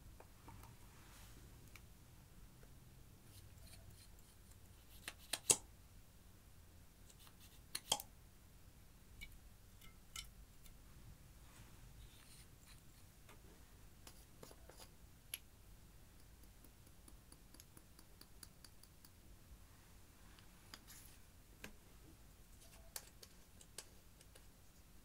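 Sparse clicks and light taps of small plastic makeup containers and caps being handled and set down, over near silence. The sharpest clicks come in two small clusters, about five and eight seconds in.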